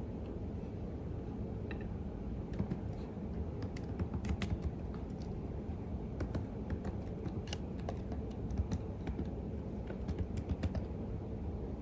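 Computer keyboard typing: irregular runs of keystroke clicks, sparse at first and coming in short flurries later. Under the clicks is a steady low background rumble.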